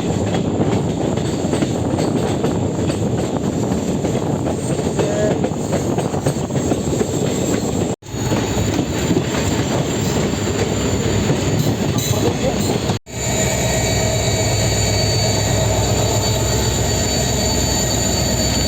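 Train running on the rails, with steady wheel-and-track noise and squealing wheels. It is heard in three segments that cut off abruptly, about eight and thirteen seconds in; the last segment carries steady high-pitched squeal tones.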